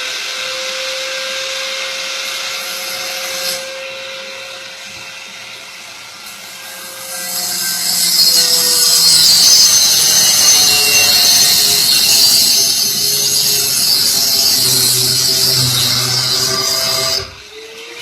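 A handheld power tool's motor running at a steady pitch, then cutting through a plumbing pipe from about seven seconds in with a loud, high-pitched hiss and shifting whine that lasts about ten seconds and cuts off suddenly near the end.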